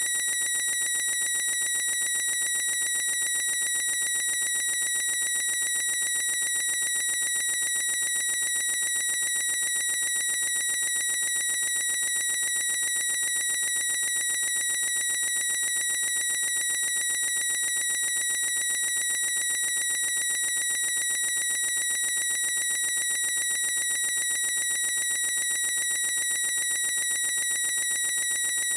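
A boy's high-pitched squeal, held at one unchanging pitch with its overtones and never breaking, stretched out as a seamless loop.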